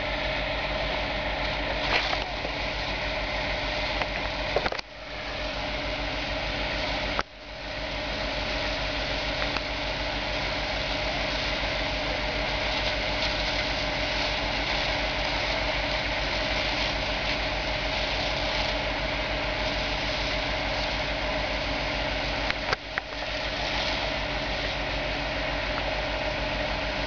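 Fire engine's motor running steadily, with a constant hiss over it. The sound briefly cuts out three times.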